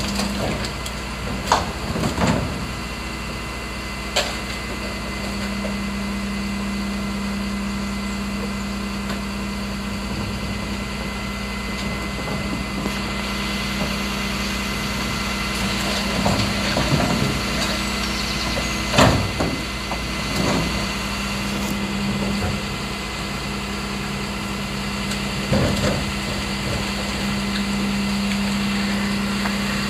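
Rear-loading bin truck running at standstill while its hydraulics work the bin lift and compactor, a steady hum whose engine note rises for stretches of several seconds. Several sharp metal bangs and clanks of the bin and packer cut through, the loudest about two-thirds of the way in.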